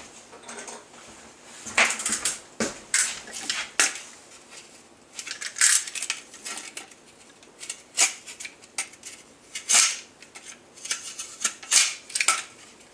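Utility knife cutting along the rim of a partly cured resin-and-fibre duct: a series of short, irregular scraping cuts, a dozen or so strokes with short pauses between them.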